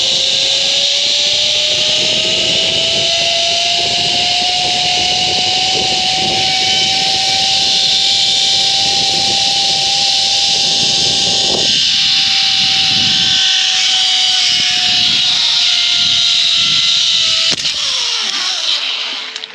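Zip-line trolley pulleys running along the steel cable at speed: a loud whine that rises in pitch at the start, holds steady, then drops in pitch and fades near the end as the trolley slows. Wind rumbles on the microphone underneath.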